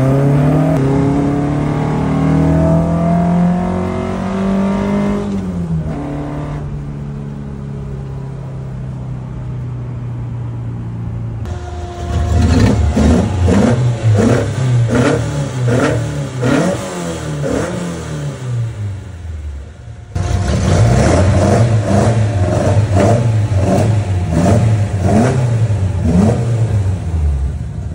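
1971 Datsun 510 race car's engine: first pulling under way, its pitch rising and falling with throttle and gear changes, then settling to a steadier lower note. After an abrupt cut, and again after a second one about two-thirds of the way in, the engine is blipped repeatedly in quick revs that rise and fall.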